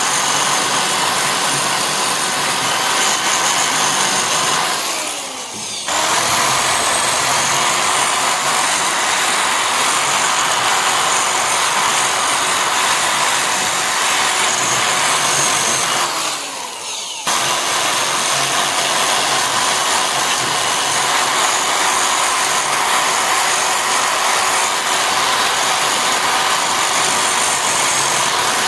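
Electric power tool motor running steadily at speed. About five seconds in and again about sixteen seconds in, its pitch falls away briefly before it snaps straight back up to full speed.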